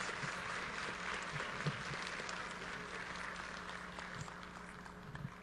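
Audience applauding, the clapping tapering off toward the end.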